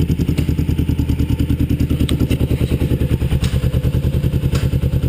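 Kawasaki EX500's parallel-twin engine idling through homemade glasspack mufflers: a loud, steady, even low exhaust pulse, with a few faint clicks.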